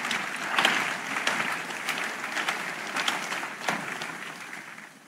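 Large congregation applauding, dying away near the end.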